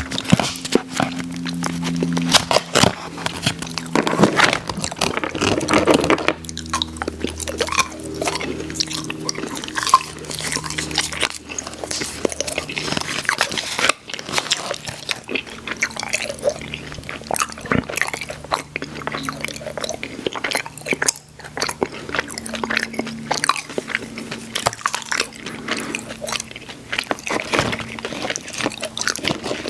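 Close-miked mouth sounds of chewing Airheads Xtremes sour chewy candy: many wet smacks, clicks and squelches. Faint low held tones sit underneath and change every few seconds.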